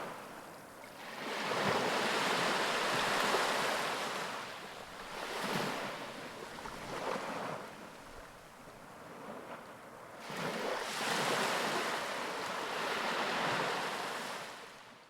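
Ocean waves breaking on a beach: surf washes in with two big surges, about a second in and again about ten seconds in, with smaller swells between, and fades out at the end.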